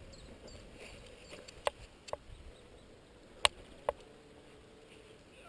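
Mountain bike rolling down a rough dirt singletrack: a low, quiet rumble from the tyres and wind, broken by about four sharp clicks and rattles from the bike as it goes over bumps.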